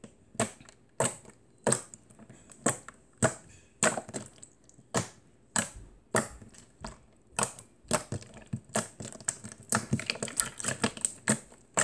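Thick jiggly slime, made with a lot of added water, being poked and pressed with the fingertips, giving a run of sharp clicks. They come about one and a half a second at first, then faster and in clusters near the end.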